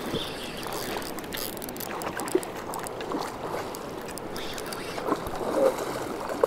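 Shallow river water running over gravel, with a few splashes from a hooked chinook salmon thrashing at the surface as it is brought to the net, the plainest about two and a half seconds in and near the end.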